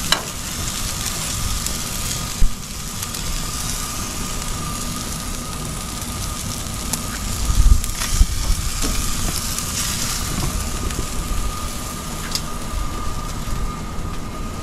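Duck heads sizzling on the grate of a gas grill, a steady crackling hiss, with a few sharp clicks of metal tongs as pieces are turned, most of them around the middle.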